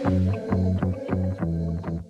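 Intro music: plucked guitar and bass notes in a steady rhythm.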